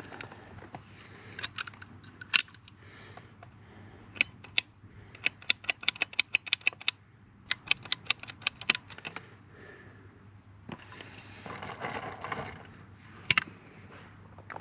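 Hand work on a plastic water-pipe fitting: a run of rapid sharp clicks, about four or five a second, with scattered knocks before and a stretch of scraping near the end.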